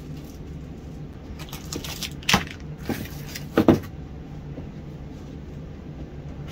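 Frozen food packages knocking and rustling as they are handled, with two sharper clatters, one a little past two seconds and one about three and a half seconds in, over a steady low hum.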